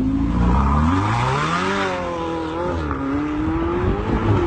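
A sports car's engine revving hard as it pulls away. Its pitch climbs, drops back about two seconds in, then climbs again.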